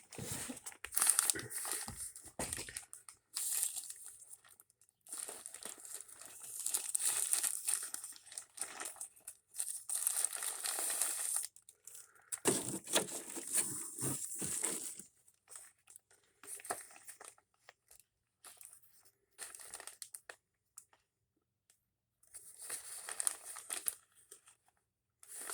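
Rummaging through plastic or paper packaging: crinkling and rustling in irregular bursts of a few seconds, with short pauses between.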